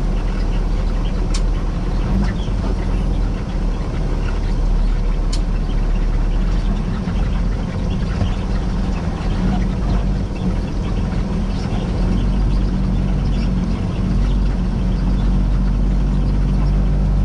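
Peterbilt 389 semi truck's diesel engine running steadily while the truck rolls at low speed, heard from inside the cab, with two sharp clicks about one and five seconds in.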